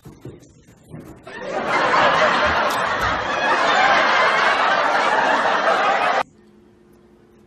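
Loud, breathless human laughter, starting about a second in and cutting off suddenly about six seconds in.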